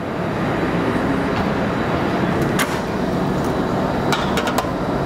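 Commercial oven door opened and a metal sheet pan slid onto the rack, giving a few sharp clanks and clicks, over a steady rushing kitchen background noise.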